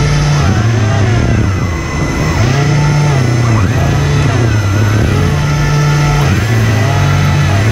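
The HP server fans of an RC hovercraft run hard, their pitch gliding up and down over and over as the throttle changes, over a steady low hum.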